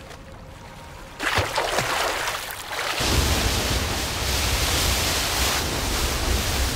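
Rushing water: splashing starts about a second in, then the steady roar of a waterfall takes over about three seconds in.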